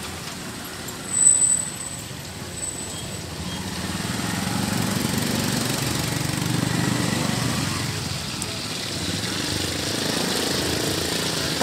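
Street traffic, with engines running and passing, swelling from about four seconds in. A brief high-pitched squeal about a second in.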